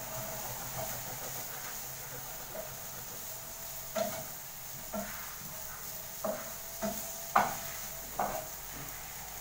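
Cutlery clinking and scraping on a plate about six times over a steady hiss, the loudest clink a little past the middle.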